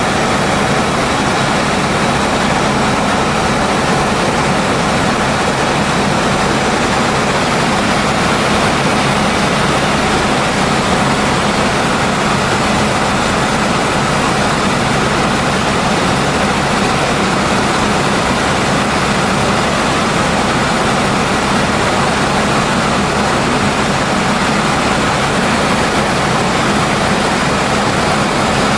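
Helicopter in flight heard from inside the cabin: a steady, loud rush of engine and rotor noise with a few constant hum tones, unchanging in level.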